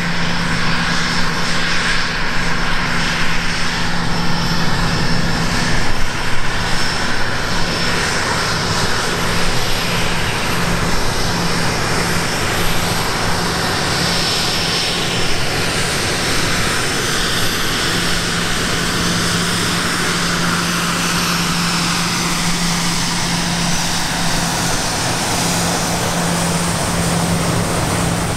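Gulfstream GV business jet's twin Rolls-Royce BR710 turbofans running at taxi power. A steady whine over a low hum, with the tone sweeping up and down partway through as the jet moves past.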